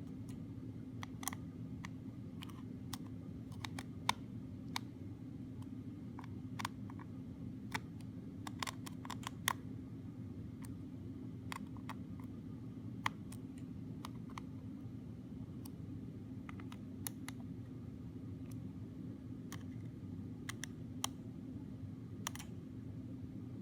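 Small screwdriver working tiny screws in a 5th-generation iPod's metal case: light, irregular clicks and ticks as the bit seats and turns, over a steady low hum.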